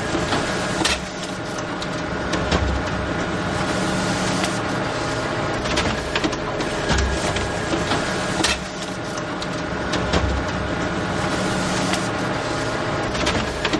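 Photocopier running: a steady mechanical whir with sharp clicks and low thumps that come round again every few seconds as the copy cycle repeats.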